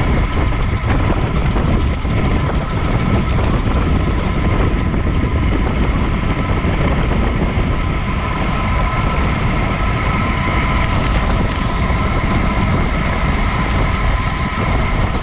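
Wind rushing over a bike-mounted action camera's microphone while a road bike rolls at speed on asphalt: a loud, steady rumble, with a few faint steady tones above it.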